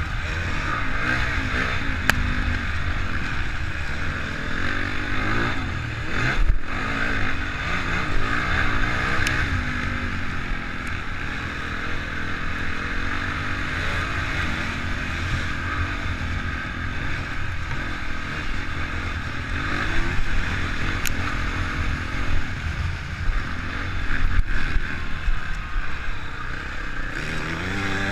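Honda CRF450 single-cylinder four-stroke motocross bike engine running hard, revs rising and falling as it is ridden around a dirt track, heard from a helmet camera.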